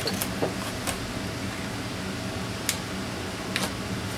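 Steady fan hum in a workshop, with a few faint clicks as a hard plastic clamshell package is handled.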